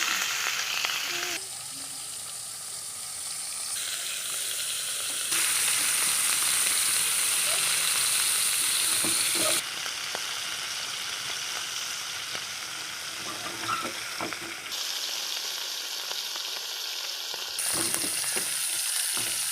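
Dried fish (panna karuvadu) sizzling as it fries in hot oil, with stirring in the pan. The sizzle gets abruptly louder and softer several times.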